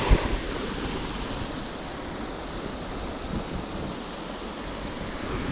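Creek waterfall rushing steadily while a fishing reel is held in the falling water to rinse sludge off it. One short, sharp knock right at the start.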